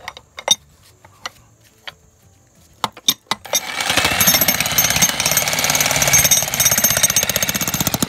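A few sharp metallic clicks as a flat chisel bit is fitted into a corded electric jackhammer. About three and a half seconds in, the jackhammer starts and hammers rapidly and steadily, its flat bit breaking up a shale rock in the bottom of a hole.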